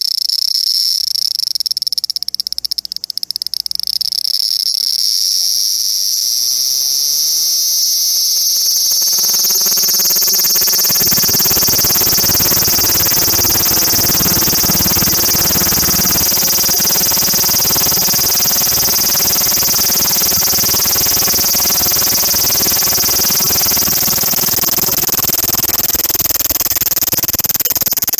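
Japanese cicada calling: a loud, steady high-pitched whine that slowly rises in pitch, swelling into a fuller, denser buzz about ten seconds in.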